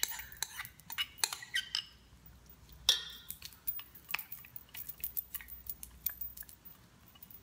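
A spatula scraping and tapping inside a bowl as soaked bulgur wheat is worked out of it into a steel mixing bowl: irregular light clicks and scrapes, with a sharper knock about three seconds in.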